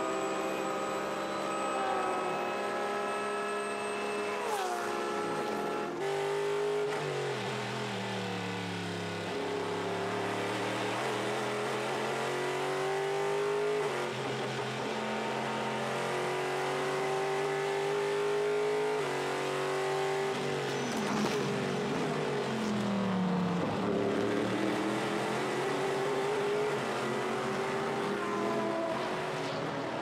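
Onboard sound of a Porsche 911 RSR's flat-six race engine at high revs, dropping in pitch with a downshift. From about six seconds in, a Chevrolet Corvette C7.R's V8 race engine runs at full throttle, climbing through the gears in steps, then falls in pitch through several downshifts under braking before accelerating again.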